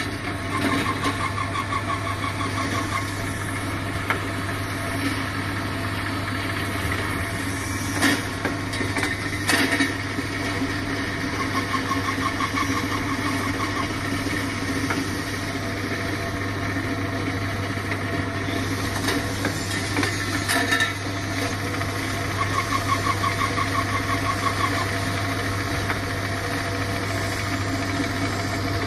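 Automatic powder filling, capping and labelling machinery running: a steady low hum with scattered clicks and knocks, and a short rapid rattle that comes back about every 11 seconds, three times.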